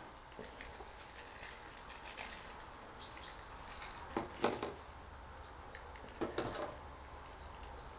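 Rustling and soft scraping of raffia strands and cotton thread handled close to a clip-on microphone, as red thread is wound around and pulled tight to bind a raffia skirt onto a plug. A few short handling noises stand out, the loudest about four and a half seconds in.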